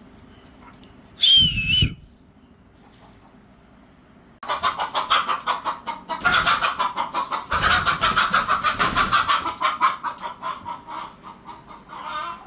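Chickens cackling loudly in a long, rapid run of clucks that starts about four seconds in and fades near the end. A brief high-pitched squeal comes about a second in.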